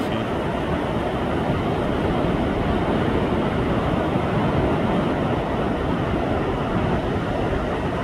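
Heavy ocean surf breaking on a beach: a steady, continuous rush of waves and whitewater, swelling slightly around the middle.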